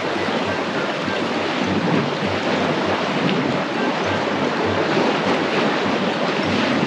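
Wind gusting on the microphone, rumbling at the bottom, over the steady wash of waves breaking on rocks beside a concrete seawall.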